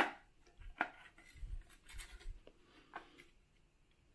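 Hands handling a plastic string-light reel and its braided cord: a sharp plastic click at the start, then scattered lighter clicks, a few dull bumps and rubbing as the cord is fed into the locking notch in the housing.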